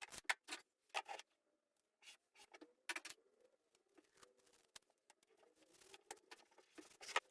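Quiet, scattered light clicks and taps of small objects being handled, some in quick clusters, over a faint wavering hum.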